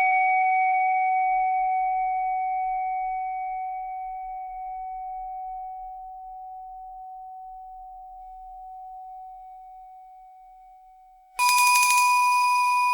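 Boat bell ringing out after a single strike, one clear tone fading slowly for about ten seconds. Near the end it is struck again and rings at a higher pitch.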